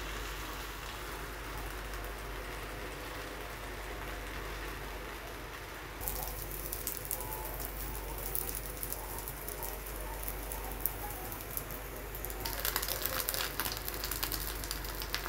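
Food sizzling on a flat iron tawa over a gas flame: first a steady soft hiss, then from about six seconds in a crackling sizzle of a paratha frying. Near the end the crackling turns louder and denser as an egg fries on the griddle.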